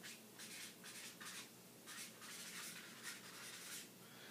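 Marker pen writing on a whiteboard: a quick run of short, faint scratching strokes as a word is written out.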